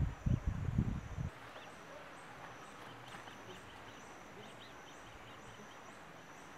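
Low rumbling thumps that cut off abruptly about a second in, followed by quiet garden ambience: birds chirping, with a thin high call repeating about twice a second.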